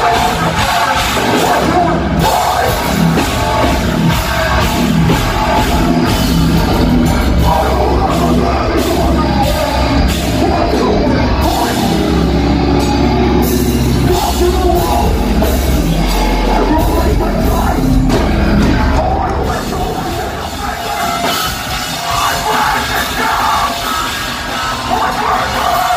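Live heavy metal band playing loud, with drums, amplified guitars and a vocalist, recorded from the crowd. The music eases a little in loudness about twenty seconds in.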